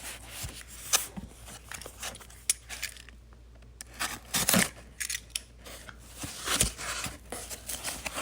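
Packaging being opened and handled: irregular tearing and rustling with sharp clicks and knocks, pausing briefly about three seconds in.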